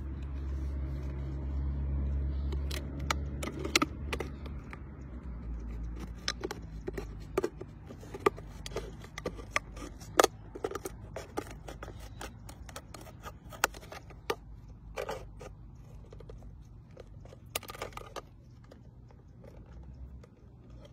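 A small knife blade scraping and cutting into a plastic juice bottle: an irregular run of sharp clicks and scratchy scrapes, with a low rumble underneath that fades out over the first few seconds.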